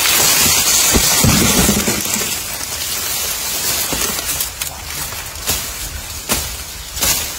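Dry cane or grass leaves and stalks rustling and crackling close by, with a few sharp snaps.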